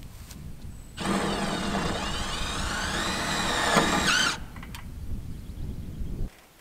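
Power drill driving screws into the strapping on a gutter downpipe. The motor whine rises and falls in pitch as the trigger is worked, for about three seconds starting a second in, then stops.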